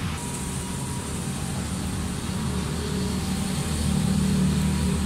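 A motor vehicle's engine running, a steady low rumble that grows louder about four seconds in.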